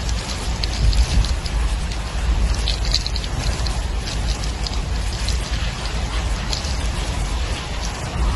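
Heavy rain falling, with many sharp taps of drops striking close by, over a low rumble of wind buffeting the microphone.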